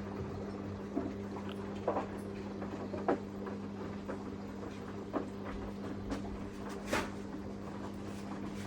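Samsung washing machine running, a steady motor hum with irregular clicks and light knocks from the drum about once a second.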